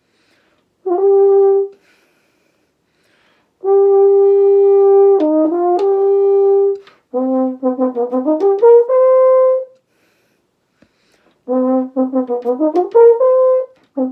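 French horn played open, without a mute: a short note, a long held note with a quick dip down and back, then two runs of rapid triplet notes climbing in pitch, with pauses between the phrases. The notes are started with air puffs rather than the tongue, the player's way around her embouchure dystonia.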